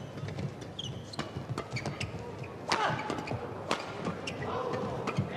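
Badminton rally: rackets striking the shuttlecock in quick, irregular hits, with shoes squeaking on the court floor.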